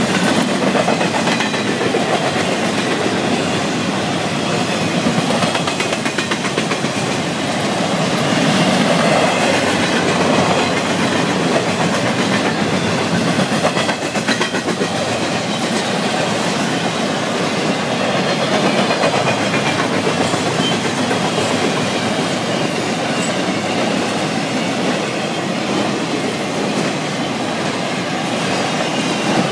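Florida East Coast Railway intermodal freight train's cars rolling past at speed, a steady loud rumble and clatter of steel wheels on the rails.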